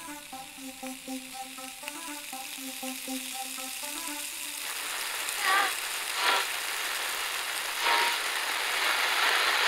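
Food sizzling in a frying pan, the sizzle swelling steadily louder. A pulsing electronic synth pattern runs over it and stops about halfway through. In the second half there are three brief, louder wavering sounds.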